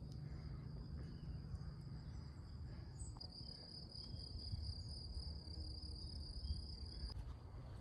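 Cricket singing: a steady, high, unbroken trill that grows louder about three seconds in and stops abruptly about a second before the end, over a faint low rumble.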